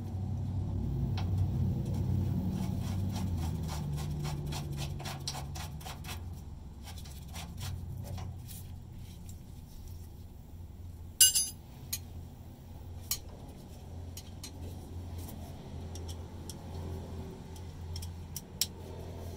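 Socket ratchet clicking in quick runs as a ground-wire bolt on the truck's frame is turned out. One sharp metal clink comes about halfway through, with a few lighter clicks after it.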